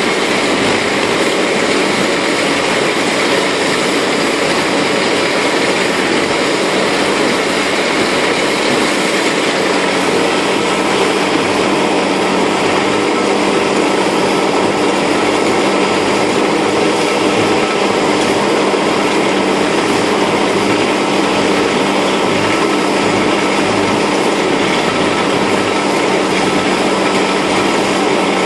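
Tractor-driven GROWI three-point PTO slurry mixer running steadily at full speed, churning liquid manure in an open pit; engine and driveline hum with a few steady tones over the constant rush of the stirred slurry.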